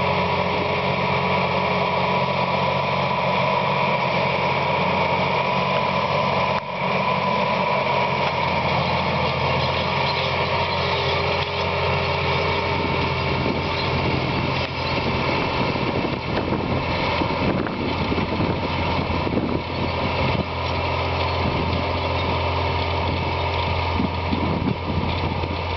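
Tractor's diesel engine running steadily while pulling a pneumatic eight-row maize planter through the field, with a steady whine over the engine note. From about halfway through, a rougher rattle joins in as the rig passes.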